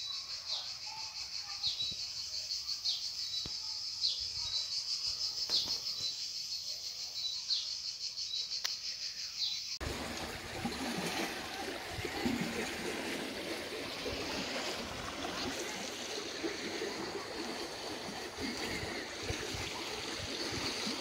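Water rushing steadily along a concrete irrigation channel, an even noise that starts suddenly about halfway through. Before it comes a steady high-pitched shrill drone that dips about once a second.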